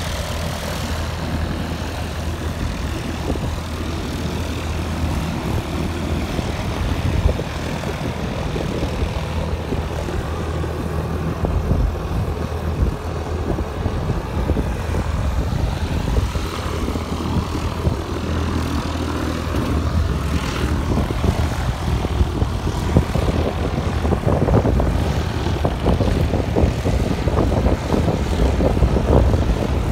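Propeller aircraft engine running with a steady drone, growing somewhat louder over the last third.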